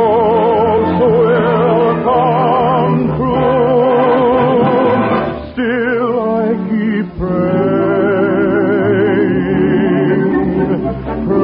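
A song from an old radio broadcast: a singer holding long notes with wide vibrato over an orchestral accompaniment, the recording thin with no treble. The music dips briefly about five and a half seconds in and again about seven seconds in.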